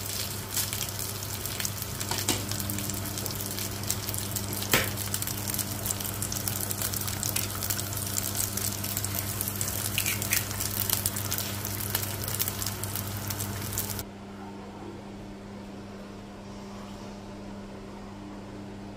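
Rice and an egg sizzling in hot oil in a cast-iron skillet, with occasional scrapes and taps of a wooden spatula against the pan. The sizzle cuts off about fourteen seconds in, leaving only a low steady hum.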